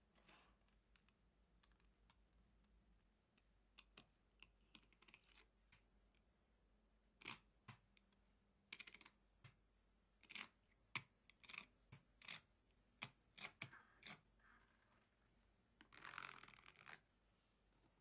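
Mini magnet balls clicking as they snap against each other and onto a board of magnet balls: scattered sharp clicks, then a quick run of them, with a short scraping rustle near the end.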